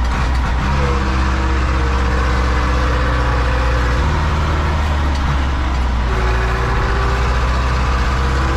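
Zetor 7245 tractor's four-cylinder diesel engine running steadily under load while hauling a wheat trailer, heard from inside the cab. Its pitch shifts slightly about half a second in and again at about four seconds.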